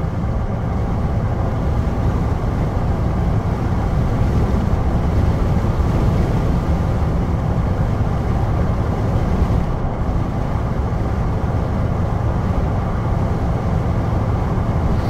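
Steady engine and road noise heard from inside a vehicle's cab cruising at highway speed, an even low rumble that does not change.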